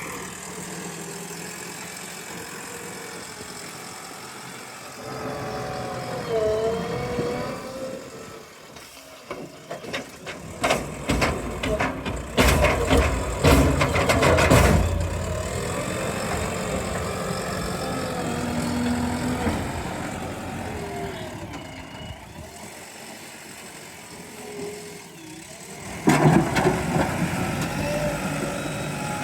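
JCB 3DX backhoe loader's diesel engine running, its pitch rising and falling as it works, with a run of sharp knocks from about ten to fifteen seconds in and a sudden louder surge near the end.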